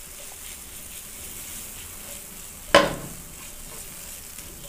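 Mashed potato being stirred into onion-and-spice masala frying in oil in a pan: a steady soft sizzle, with one sharp knock of the stirring utensil against the pan a little under three seconds in.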